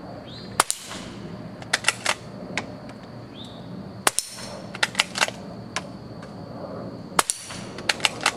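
Marlin bolt-action .22 rifle firing CB Long low-velocity rounds: three quiet pops about three seconds apart, each followed by a few clicks of the bolt being worked to chamber the next round.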